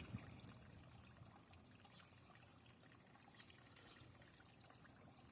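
Faint trickling of garden pond water, close to silence.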